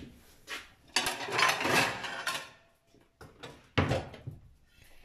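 A plate being fetched and handled on a kitchen counter: a clattering rustle from about one to two and a half seconds in, then a sharp knock a little before four seconds.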